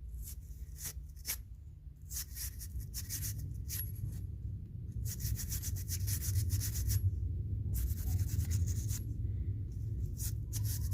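Parts of a dirty adjustable wrench being scrubbed clean: runs of quick, hissy rubbing strokes that come in clusters and stop and start, over a low steady hum.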